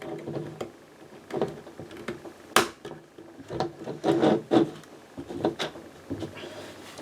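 Plastic Lego bricks being handled and pressed together: irregular sharp clicks and knocks with some rubbing, the loudest click about two and a half seconds in.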